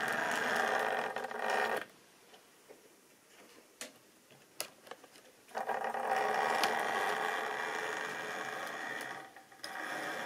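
Model train running close past: a steady whirring rumble of the locomotive's motor and wheels on the track. It drops away for a few seconds about two seconds in, leaving a few sharp clicks, then comes back loud about five and a half seconds in and dips briefly near the end.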